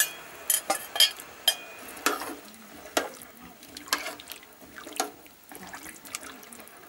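Diced potatoes dropping into a pot of boiling broth, then a slotted spoon stirring them, with a string of sharp splashes and knocks, several close together at first and then about one a second.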